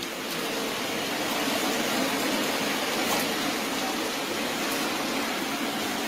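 A steady rush of water.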